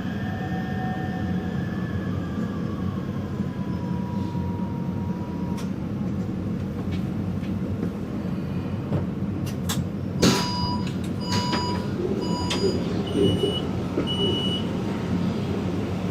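Taipei Metro train running with a steady low rumble, while a motor whine falls in pitch over the first few seconds as it slows. From about ten seconds in come a series of short clicks and brief electronic beeps.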